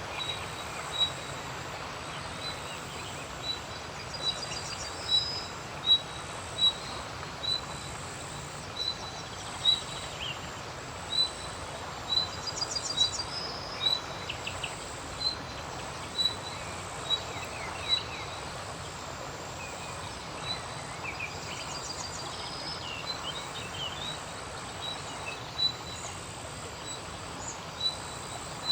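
Birds calling outdoors: one bird repeats a short, high single note about once or twice a second throughout. Other birds add scattered trills and chirps, all over a steady background hiss.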